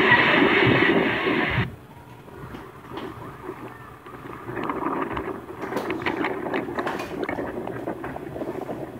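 Floodwater rushing through a street with voices in it, cutting off abruptly after about a second and a half to a quieter wash of wind and water noise with scattered crackles.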